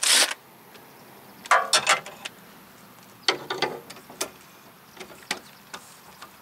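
Cordless impact tool on a socket extension, run in several short bursts to spin out a 14 mm caliper bracket bolt, with a few sharp metallic clicks between the bursts.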